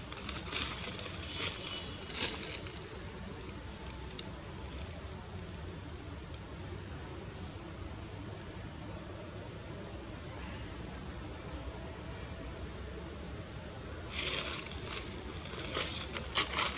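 Steady, high-pitched drone of insects in the forest, one unbroken tone. Scattered short clicks and rustles come over it near the start and again near the end.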